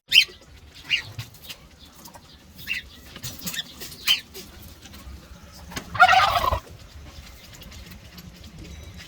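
Cockatiels calling: a string of short, high chirps, then one louder, harsher screech about six seconds in.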